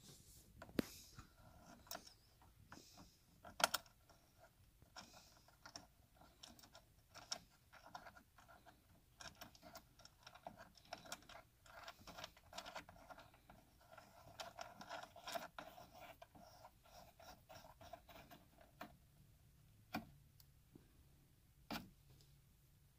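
Faint scratching and clicking of fingers turning plastic knobs on a rearview mirror's mounting bracket, with a few sharper clicks and a longer stretch of rubbing in the middle.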